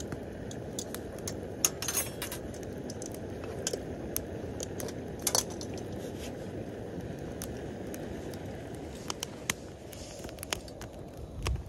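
Scattered sharp clicks, a few louder ones at about two and five seconds, over a steady low rushing noise.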